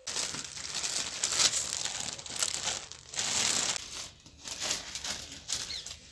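Clear polythene bag crinkling and rustling as damp straw is packed into it by hand. The rustle is irregular, coming and going.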